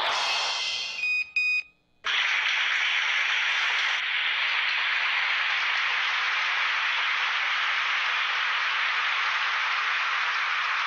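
Music dies away, then two short electronic beeps come in quick succession. After a brief hush, a steady static-like hiss starts suddenly and holds at one level.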